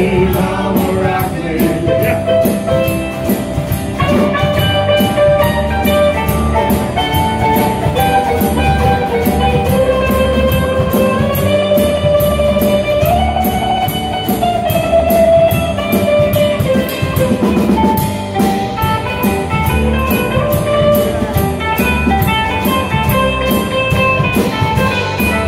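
Acoustic guitar strumming a steady rhythm while a mandolin plays a melody over it.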